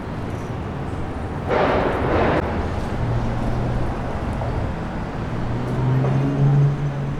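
City street traffic: a vehicle engine runs with a low steady hum that swells near the end. A short, loud hiss comes about a second and a half in.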